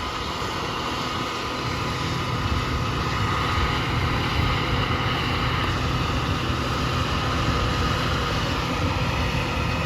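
Engine running steadily, a low drone with a faint high whine over it, from farm machinery working in a harvest field.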